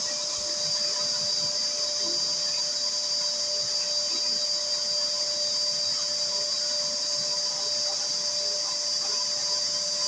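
Wet vacuum cleaner running steadily with its upholstery nozzle pressed on a fabric sofa cushion: a constant motor whine over the hiss of suction.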